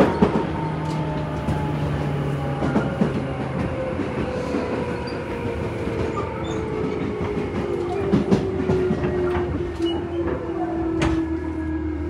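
Interior of a Tobu 10030-series electric train slowing for a station stop: the motor whine falls steadily in pitch as it brakes, with wheels clacking over rail joints and a faint wheel squeal.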